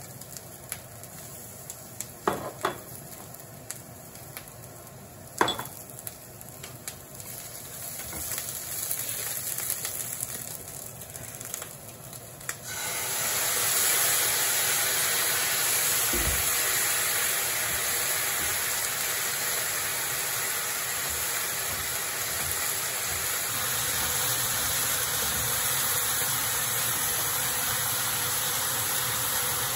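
Zenmai fern fiddleheads frying in a pan, at first with a quieter sizzle and a few sharp clicks of utensils against the pan. About thirteen seconds in, oil is poured in and the sizzle abruptly turns loud and stays steady, with one dull knock a few seconds later.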